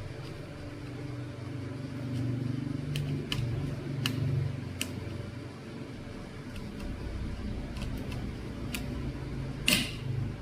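Scattered light clicks and taps, with one louder, sharper click near the end, over a steady low hum.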